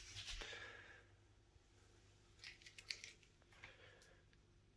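Near silence: room tone with a few faint, short clicks around the middle.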